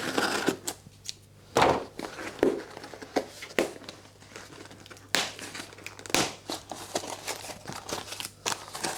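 Plastic packaging crinkling and being torn open, in short irregular rustles with a few sharper rips.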